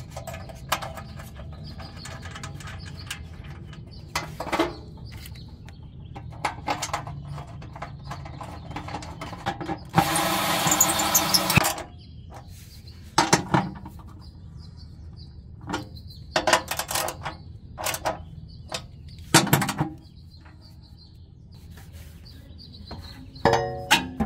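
Hand ratchet and socket fastening the exhaust heat shield's bolts: scattered clicks and knocks of the tool and metal parts, with a burst of fast ratchet clicking lasting nearly two seconds about ten seconds in. Birds chirp faintly in the background.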